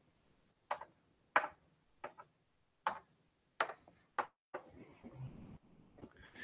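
A series of light knocks, about one every three-quarters of a second, followed by faint rustling near the end.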